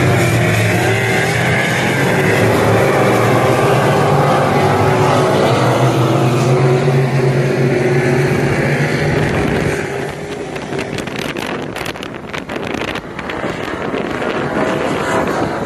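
Street stock race cars' engines running hard around a dirt oval, the engine note swelling and easing as the cars go round. After about ten seconds the engines fade and wind buffets the microphone.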